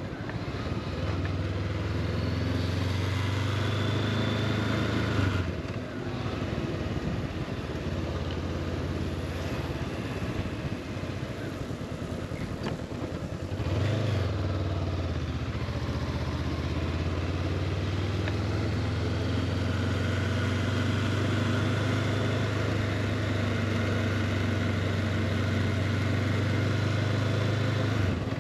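Honda CB500X motorcycle's parallel-twin engine running steadily under way. The engine note dips and picks up again twice, about five and fourteen seconds in.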